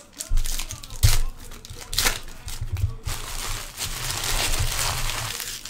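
Wrappers of Panini Prizm football hobby packs crinkling and tearing as they are ripped open by hand, with sharp rips about one and two seconds in and a longer stretch of crinkling in the second half. Low thumps of handling against the table run underneath.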